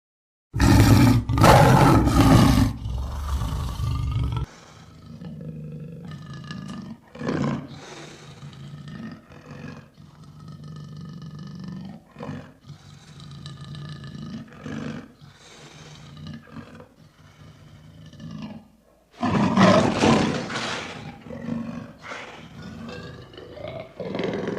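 Lion roaring: a loud roar starts about half a second in and lasts about four seconds. A long run of shorter, quieter calls follows, then a second loud roar a little before the end.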